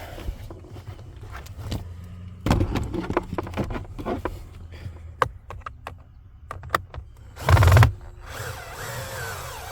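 The screw that holds a car's cabin air filter cover being turned in with a screwdriver: scattered clicks, knocks and rasps of the tool and plastic parts. There is a loud thump about three quarters of the way through.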